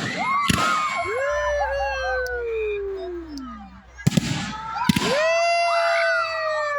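Fireworks going off, two pairs of sharp bangs, each pair followed by dogs howling along in long, overlapping howls that rise and then slide slowly down in pitch.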